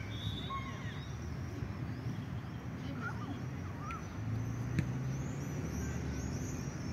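Outdoor ambience by a football pitch: a low steady rumble of road traffic that grows a little about four seconds in, faint distant shouts from the players early on, and a single sharp knock near the middle.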